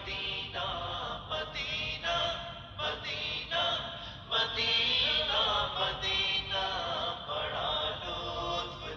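Background music: an Urdu devotional naat sung by voices, with a chant-like, choir-like vocal sound and no clear words in this stretch.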